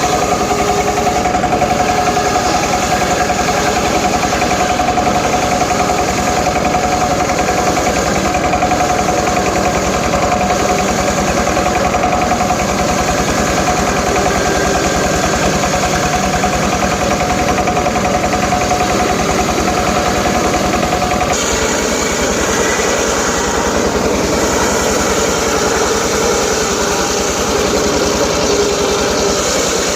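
Homemade circular sawmill running and sawing teak timber, a loud steady mechanical drone. Its sound changes about twenty seconds in: a steady tone drops out and the hiss grows brighter.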